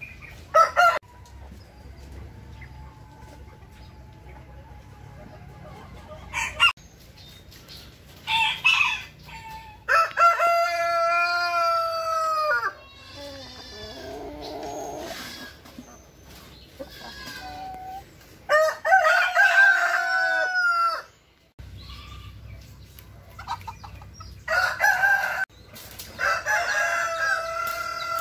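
Roosters crowing about four times, each crow a long call of two to three seconds that drops in pitch at its end, with short clucks from hens in between.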